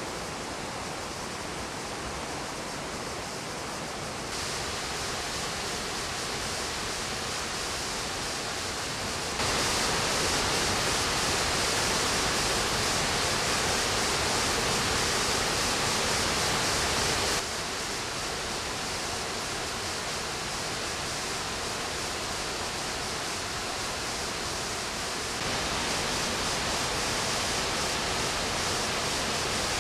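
Steady rush of a small waterfall and rapids pouring over rocks into a pool. The level steps abruptly louder or softer several times, loudest for several seconds in the middle.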